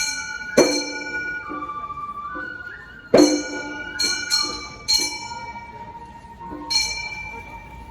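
Gion-bayashi festival music: small hand gongs (kane) struck sharply about six times, each ringing on, over a transverse flute holding high notes that step from one pitch to the next.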